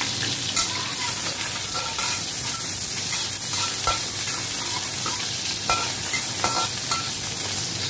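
Shallots, garlic and ginger sizzling in hot oil in a wok as they are stir-fried, with a metal spatula scraping and ticking against the pan now and then.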